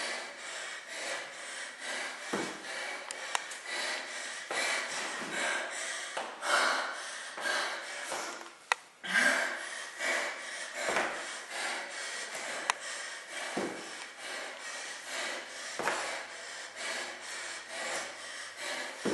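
Rhythmic rasping and rubbing, a few strokes a second, from a woman working through lunges with a sandbag on her shoulders, with a few sharp clicks.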